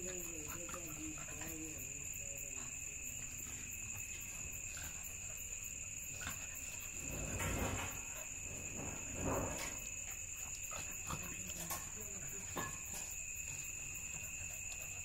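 Crickets trilling steadily at night at two high pitches. Two short noisy swells about halfway through come from two dogs wrestling at play, with a few soft scuffing clicks after them.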